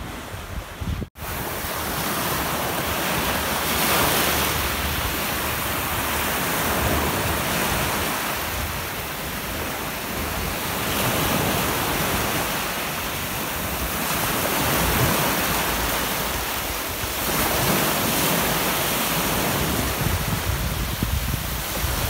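Surf breaking and washing up a sandy shore, swelling and easing every few seconds, with wind buffeting the microphone. A brief drop-out about a second in.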